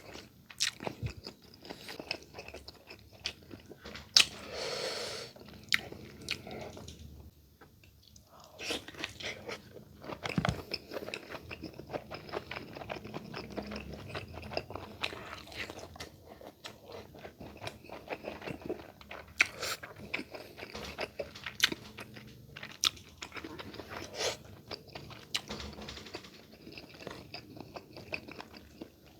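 A person chewing and biting food close to the microphone, with crisp crunching clicks all through and a brief lull about seven seconds in.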